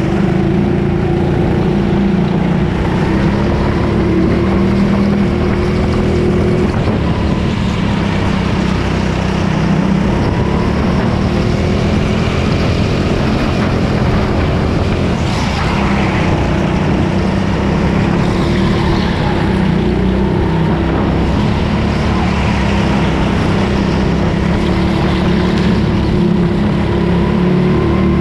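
Racing go-kart engine running continuously at speed, its pitch wavering slightly up and down as the kart goes round the track.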